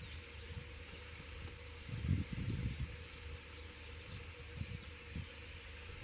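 A large flock of starlings chattering in the trees, a dense continuous mass of overlapping calls. Wind buffets the microphone in low gusts, strongest about two seconds in.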